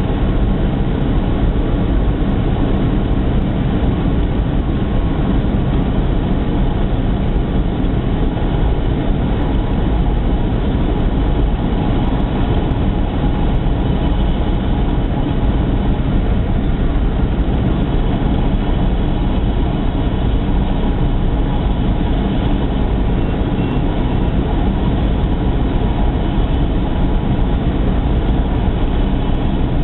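Steady cabin drone of a Cessna 172 gliding with the power off: the piston engine at idle and the propeller turning, under a steady rush of air over the airframe in the descent.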